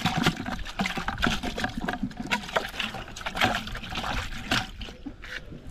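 Water sloshing and splashing in a plastic tub as a hand swishes scad fish around to wash off their blood, in irregular splashes.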